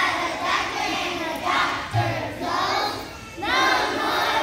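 A large group of young children singing together in short, loud phrases.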